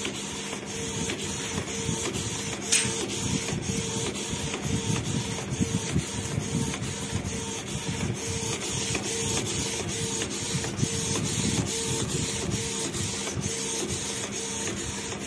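Canon PIXMA iP2770 inkjet printer printing: a steady mechanical whir as the print-head carriage runs back and forth, with regular clicks about three a second.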